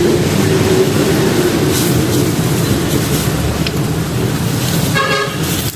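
Steady low rumbling background noise, with a brief pitched sound about five seconds in.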